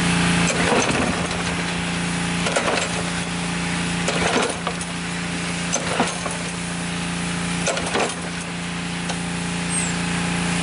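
Pull-cord recoil starter of a Craftsman push mower's small engine yanked five times, about once every two seconds, each pull a short rasping rush, with the engine not catching on its vapor-only fuel feed. A steady low hum runs underneath.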